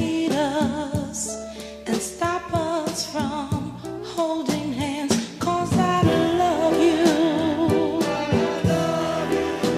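Background music: a song with a singing voice held in long notes with vibrato, over a steady drum beat of about two hits a second.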